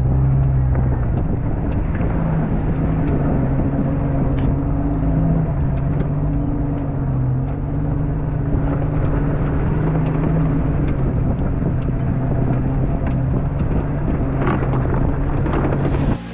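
Off-road 4x4's engine running at low, slightly varying revs as it crawls over rocks, with scattered clicks and knocks throughout.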